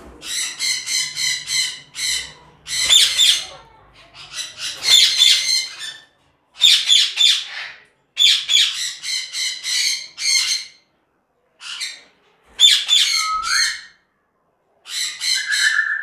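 Parrots squawking: harsh calls in quick runs of short pulses, one bout after another with brief pauses, and one call that bends in pitch about two-thirds of the way through.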